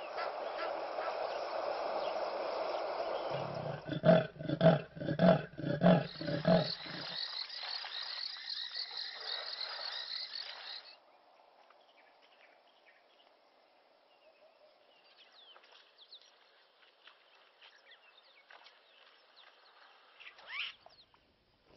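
Hippopotamus honking: a run of about six loud, deep grunts, about two a second, some four to seven seconds in. A high, even chirring runs on until about eleven seconds in; after that there are only faint chirps.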